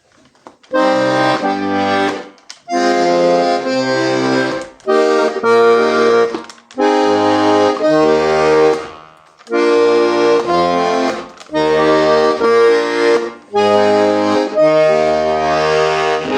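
Hohner Corona III three-row diatonic button accordion in G-C-F, playing chords over changing bass notes in short phrases, with a brief pause between each phrase.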